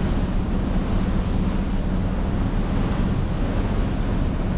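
Sightseeing boat running at speed: wind buffets the microphone over the rush of the wake, with a steady low engine drone underneath.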